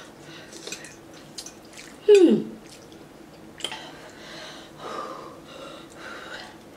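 A woman's short, loud cry about two seconds in, falling steeply in pitch, a pained reaction to the burn of very spicy noodles. Around it are quiet breathing and a few light clicks of forks against ceramic bowls.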